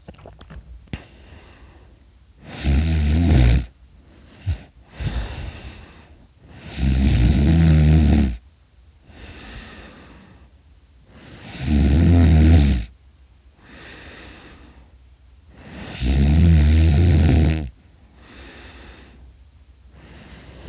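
A person snoring very loudly during sleep: four loud, rattling snores about four to five seconds apart, each followed by a softer breath.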